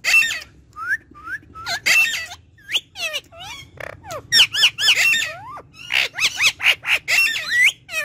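Male Indian ringneck parakeet calling: a quick run of short whistled chirps that sweep up and down in pitch, mixed with a few harsher squawks.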